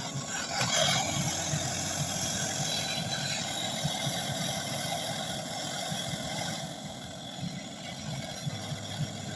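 Gas brazing torch flame burning with a steady hiss and a flickering low rumble, used to braze the freezer's refrigerant pipe joints. It cuts off abruptly just after the end.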